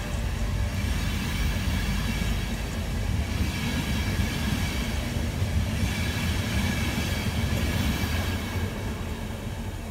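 InterCity 225 passenger train, a Class 91 electric locomotive with Mark 4 coaches, running past close by: a steady rumble of wheels on rail with faint high squeal tones. It fades near the end as the last coaches go by.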